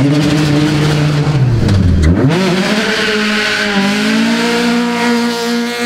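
Peugeot 208 rally car's engine revving hard as the car pulls out of a roadside ditch. The pitch is held high, dips about two seconds in, then climbs steadily as the car accelerates away.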